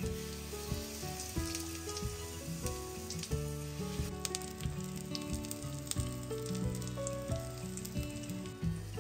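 Food frying in oil in a pan: a steady sizzle with scattered small crackles and pops, over soft background music.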